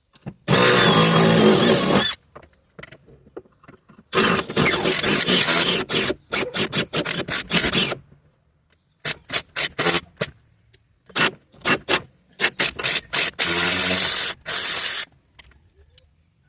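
Tools working on the Jeep's body fasteners and trim: several loud bursts of scraping, with runs of quick clicks in between.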